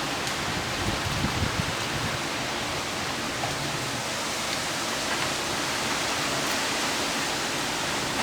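Heavy thunderstorm downpour falling steadily as an even hiss, with a few faint low bumps about a second in.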